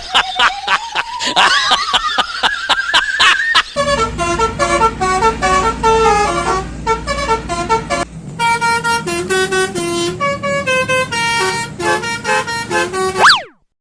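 Telolet bus horn playing a quick multi-note tune of short stepped tones. It is preceded by a rising, wavering whistle-like glide over rapid clicking, and ends with a fast falling glide that cuts off suddenly.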